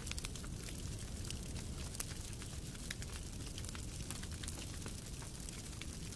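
Wood fire crackling in a fireplace: frequent short pops and snaps over a steady low rumble of the burning logs.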